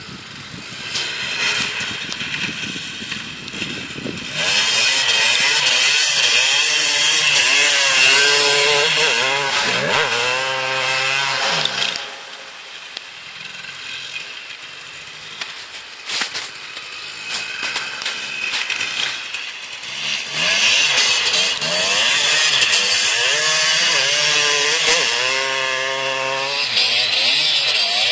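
2007 KTM 250 EXC two-stroke dirt bike engine revving hard under way, its pitch climbing and dropping back again and again through the gears. It gets loud about four seconds in, quietens around twelve seconds, and is loud again from about twenty seconds in.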